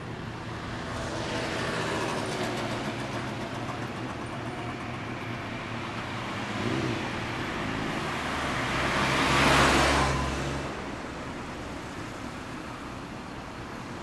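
Road traffic passing on a street. A car goes by in the first few seconds, then a Daihatsu Hijet kei truck passes close, loudest about nine to ten seconds in, and fades away.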